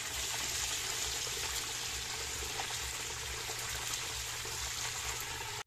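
Food deep-frying in hot oil: a steady sizzling hiss that cuts off abruptly at the end.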